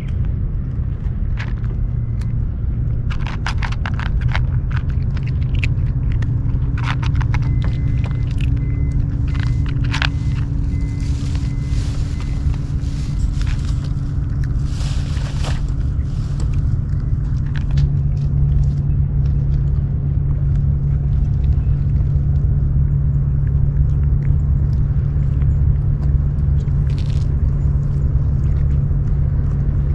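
Steady low rumble of wind on the microphone. Over it, a cat eating from a bowl at close range makes a run of sharp chewing clicks and crackles, mostly between about 3 and 11 seconds in.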